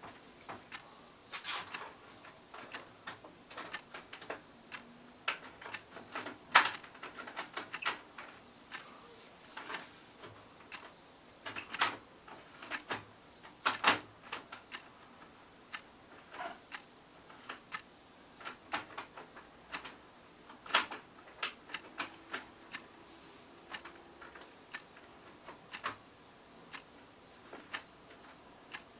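Irregular clicks and knocks of a uPVC window sash and its hinge fittings being handled and worked into place, a few sharper knocks among lighter taps.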